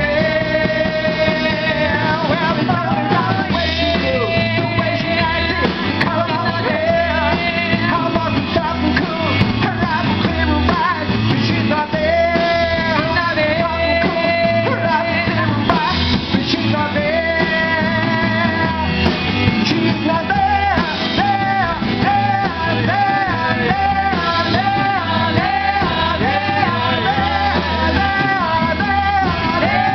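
Live rock band playing a song: a woman sings lead over drums, bass and guitar, holding long notes with vibrato.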